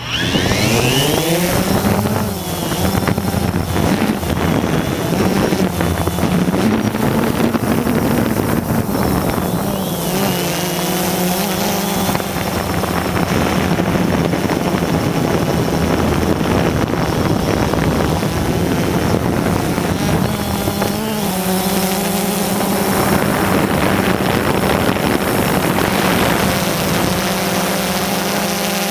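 A quadcopter drone's motors and propellers spin up in the first couple of seconds, then settle into a steady buzzing hum whose pitch wavers up and down as it flies.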